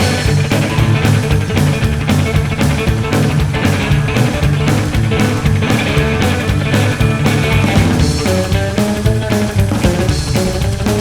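Rock music played by a band: electric guitar, bass and drums with a steady beat.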